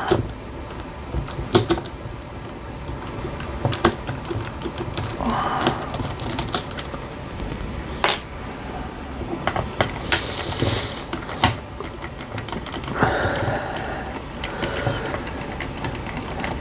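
Irregular small clicks, taps and clatter of tools and small plastic and metal parts being handled while an RC car's top cover is taken off.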